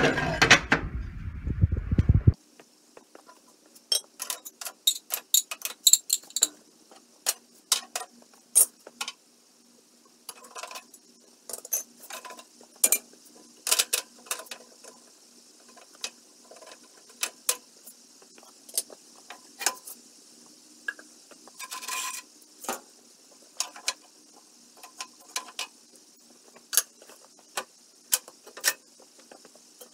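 Scattered metallic clicks, clinks and knocks of a cast-iron wood-burning cook stove (Jacobs New Victor No. 817X) being handled and shifted, its loose iron parts knocking against each other. It opens with about two seconds of loud rumbling noise, which stops suddenly.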